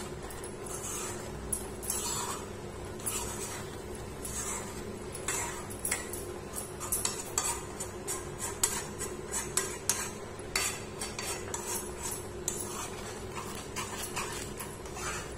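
Metal spatula scraping and knocking against a kadai as a thickening milk mixture for peda is stirred, in irregular strokes throughout, over a steady low hum.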